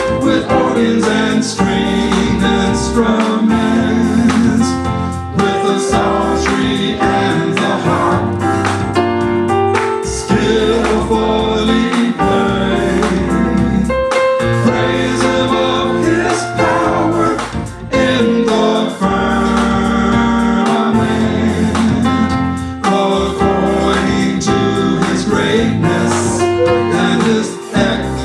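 Gospel praise-and-worship music: a band with keyboard and bass playing, with singing voices over it.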